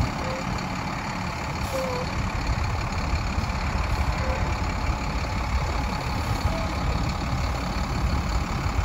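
The diesel engine of a 2010 International 4000 box truck idling steadily, a low even rumble.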